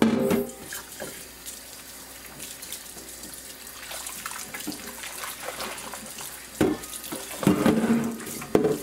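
Kitchen tap running into a cast iron wok in a stainless steel sink while a hand swishes the soapy water around to rinse it. There are louder surges of splashing and sloshing at the start and again over the last couple of seconds.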